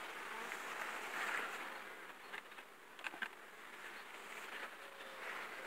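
Honeybees buzzing over an open hive's frames as a steady hum, with a few faint clicks about halfway through.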